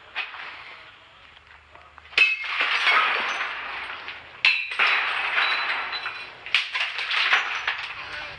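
Glass being smashed: three hard blows about two seconds apart, each followed by a long shower of clinking, tinkling shards, with a few smaller knocks near the end.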